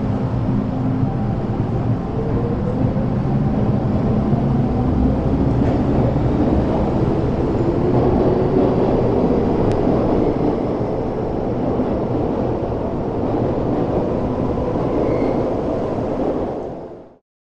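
MTR Island Line train pulling out of the platform, its traction motors whining and rising in pitch as it accelerates, over the rumble of wheels on the rails. The sound fades out near the end.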